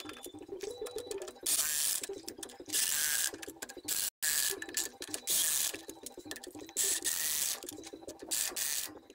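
Corded electric impact wrench tightening the lug nuts on a truck's dual rear wheel. It gives several short bursts of rapid hammering, each about half a second long, with quieter rattling of the tool between them.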